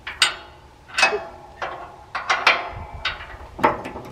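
Sharp steel-on-steel clanks and knocks, about six spread irregularly, some ringing briefly, as a snowplow blade's angle-adjustment pin is worked into its holes at the pivot.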